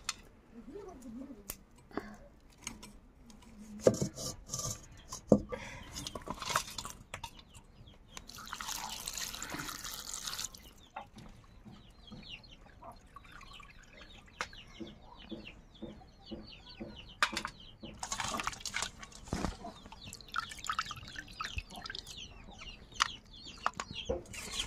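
Hands working pieces of goat offal in a steel bowl of water: scattered splashes and knocks against the metal bowl, with a longer splash about eight seconds in. Chickens cluck in the background.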